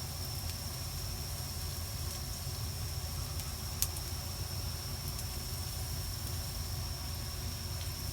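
Garlic and ginger frying gently in oil over a low flame: a faint, steady sizzle over a low, steady hum, with a single light click about four seconds in.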